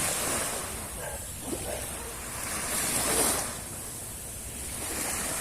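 Sea waves breaking and washing up on the beach, swelling to a peak about three seconds in and then easing off.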